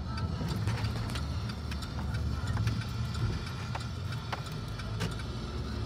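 Road and engine noise heard inside a moving car's cabin: a steady low rumble, with a few light clicks scattered through it.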